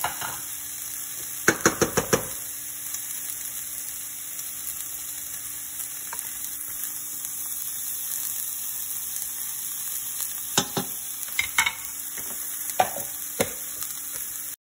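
Chopped onion sizzling in a stainless-steel frying pan, a steady high hiss. Sharp clacks of utensils against the pans come in a quick run of about five around two seconds in, then a few scattered ones near the end.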